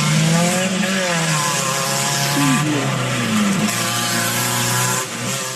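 Rally car engine running hard at high revs as the car accelerates, its pitch climbing and dipping with the throttle, then fading out near the end.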